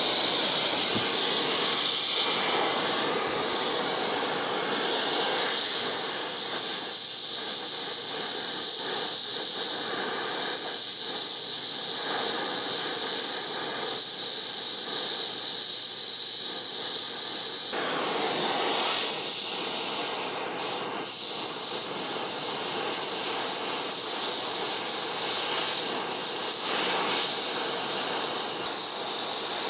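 Oxy-fuel brazing torch flame hissing steadily on a cast iron part as a flux-coated brazing rod is melted into a worn slot. The hiss is loudest in the first couple of seconds, then settles.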